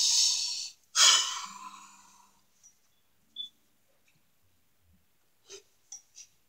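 Two loud breaths blown out close to the microphone in the first two seconds, then a few faint clicks near the end.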